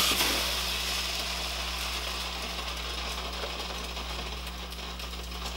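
A sudden loud crash of kitchenware, then a rattling clatter that slowly dies away.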